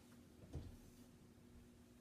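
Near silence: room tone with a faint steady hum and one soft low thump about half a second in.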